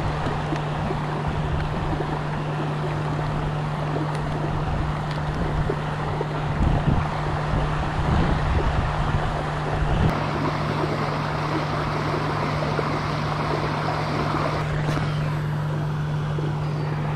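Wind buffeting the microphone: a steady rushing noise with a gusty low rumble, and a constant low hum beneath it. The rushing thins out near the end.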